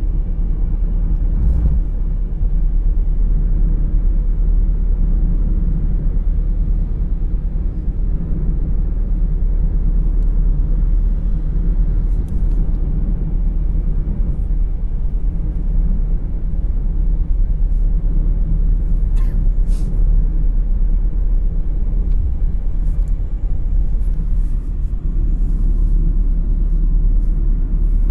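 Steady low rumble of road and wind noise inside a car travelling at speed on a highway, with a couple of faint clicks about two-thirds of the way in.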